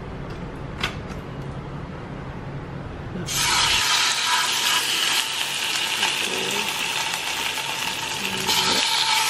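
A single click of metal tongs against a plastic tub, then, from about three seconds in, marinated chicken sizzling loudly as it pan-fries in hot oil in a non-stick frying pan, the sizzle starting suddenly.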